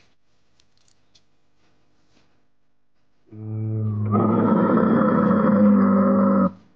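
A Parasaurolophus dinosaur call sound effect: one long, low call with a steady pitch, starting about three seconds in, swelling louder a second later and cutting off near the end. Before it, near silence with a few faint ticks.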